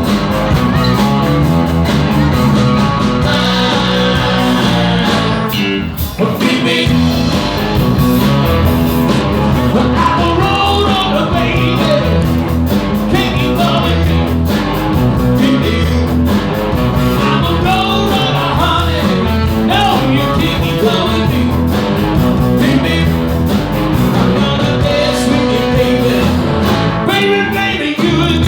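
Live band playing a rock and roll number, with guitar and a singer over a steady beat.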